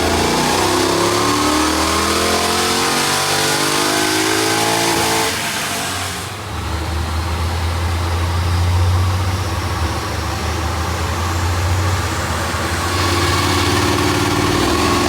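Chevy SS's LS3 V8 on a chassis dyno, revving with rising pitch for about five seconds, then dropping to a steady low drone, and starting to climb again near the end.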